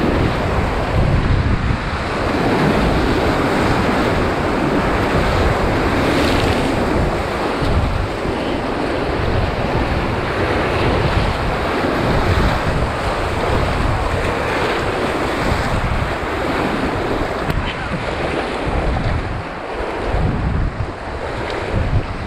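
Whitewater rapid rushing and splashing around a kayak, heard close up from the boat. Wind buffets the microphone in uneven low gusts.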